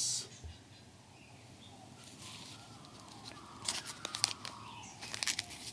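Small parts being handled: a quiet stretch, then from about three and a half seconds in a run of irregular light clicks and crinkles, like packaging rustling.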